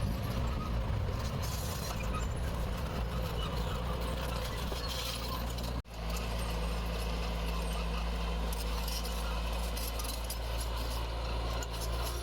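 Heavy diesel engine of earthmoving machinery running steadily under a constant low drone, with metallic clanking and rattling over it. The sound drops out for an instant about halfway through and picks straight up again.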